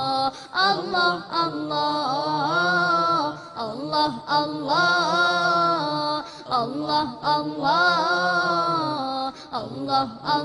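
Devotional Islamic chant sung as the programme's closing theme: a voice sings long, wavering, melismatic phrases, each held a second or two with short breaths between.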